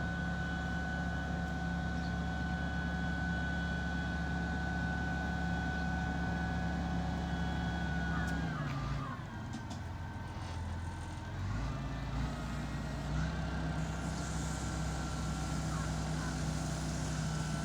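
Mitsubishi MG430 motor grader's diesel engine running steadily under work. It drops in revs about halfway through, then picks back up to its earlier steady pitch near the end.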